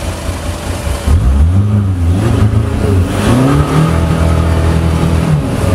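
Off-road trial 4x4's engine revving up and down in short bursts as it drives through mud, then held at steady revs for a couple of seconds before dropping off near the end.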